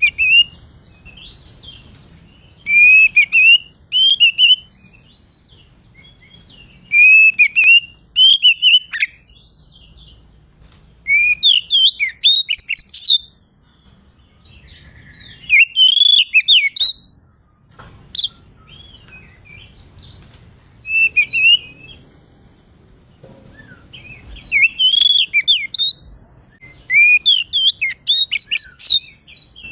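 Oriental magpie-robin (kacer) singing loud bursts of rapid, varied whistled phrases, each a second or two long, with short pauses between.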